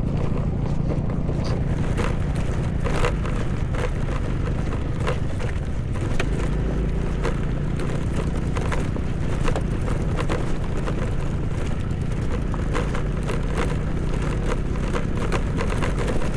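A two-wheeler's engine running steadily while riding a rough, stony off-road track, with frequent clicks and knocks from the bike jolting over the rocks.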